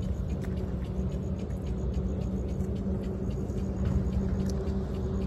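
Steady low rumble with a constant low hum underneath: an engine running.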